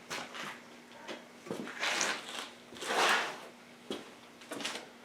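Air cleaner parts of a small quad being worked loose by hand: a few short scraping, rubbing noises with light clicks and knocks between them.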